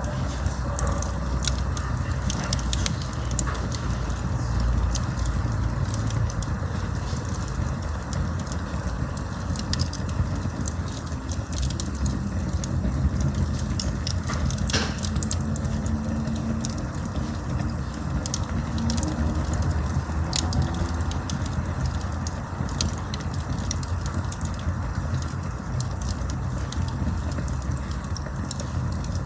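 Wood campfire burning: a steady low rush of flame with frequent sharp crackles and pops from the burning wood.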